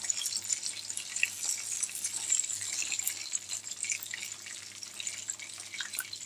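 Chicken leg pieces deep-frying in hot oil, a steady sizzle with many small crackles as they are lifted out in a wire strainer to drain after the first fry.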